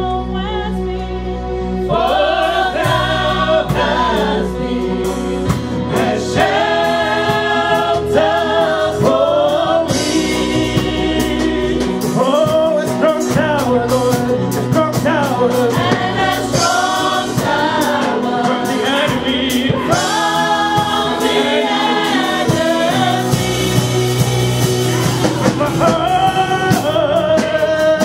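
Live gospel worship singing: a church worship team of a male leader and several women singing into microphones over a band with sustained low notes and drums, carried loudly through the church PA.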